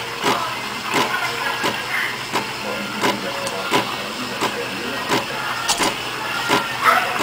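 DeLonghi Magnifica Rapid 3300 steam wand hissing into milk in a stainless steel pitcher as the milk is frothed, the hiss pulsing about every two-thirds of a second.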